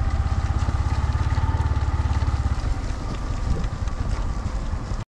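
Yamaha motorcycle engine running in third gear at low speed on a rough gravel track, with a steady, even pulse. The low engine pulses fade about halfway through, and the sound cuts out for a moment near the end.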